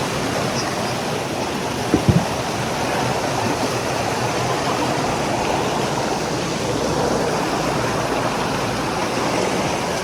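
Rushing water running steadily, with a brief knock about two seconds in.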